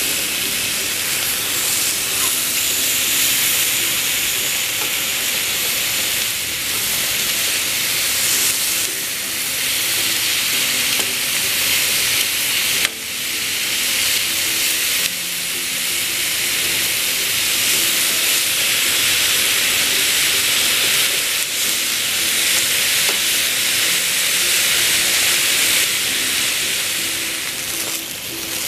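Marinated chicken thighs sizzling steadily on hot grill grates, a constant high hiss, with one sharp click about halfway through.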